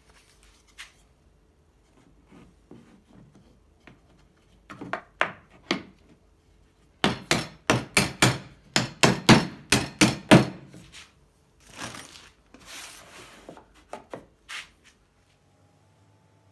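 Hammer striking a small wooden board on a workbench. A few light taps come first, then a quick run of about a dozen sharp blows over some three seconds, then a short scrape and a few last taps.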